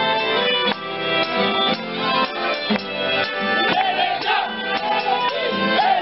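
Traditional folk dance music playing for a ring dance, with a steady beat; a wavering melody line comes in about halfway through.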